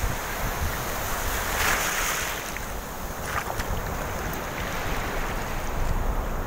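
Surf washing and foaming around a person standing in the sea, with wind buffeting the phone's microphone as a low rumble. A louder hissing wash of water comes about two seconds in.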